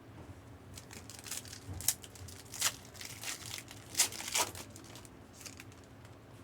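Trading card pack wrappers crinkling and tearing open by hand, in a run of sharp crackles, the loudest about two, two and a half, and four seconds in.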